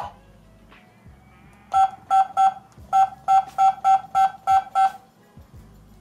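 Touch keypad of a CS108 WiFi/GSM home alarm panel beeping once per key press as a ten-digit phone number is keyed in: ten short beeps all at the same pitch, three, then a brief pause, then seven more at about three a second.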